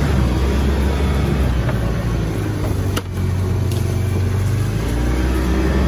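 ATV engine running steadily under way, with a sharp click and a brief dip in the engine sound about halfway through.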